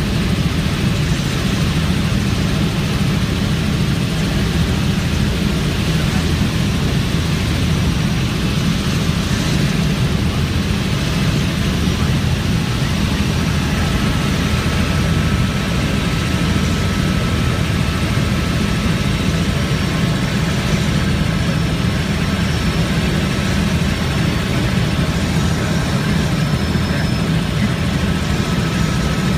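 Helicopter engine and rotor running steadily in flight: a loud, even, low drone.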